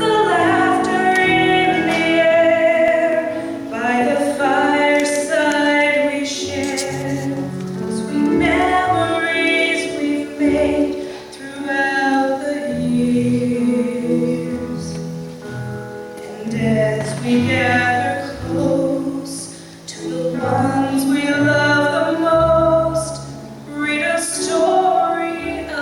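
A woman singing a solo Christmas song in phrases over held instrumental accompaniment.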